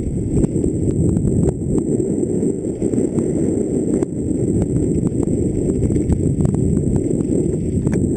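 Mountain bike descending fast over a loose gravel and rock trail, recorded on a helmet camera: a continuous low rumble of tyres and air over the microphone, with frequent sharp clicks and knocks as the bike rattles over stones. It starts suddenly and runs steadily.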